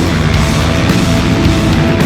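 Background music: loud, hard-driving heavy rock with distorted guitar.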